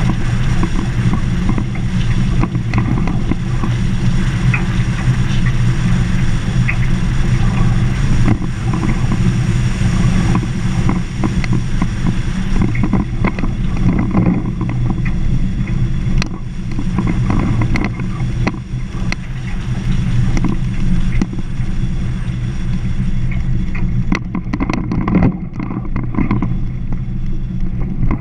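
Car driving on a rough gravel road: the engine drones steadily while the tyres crunch over stones and the body picks up frequent small clicks and knocks from the bumpy surface.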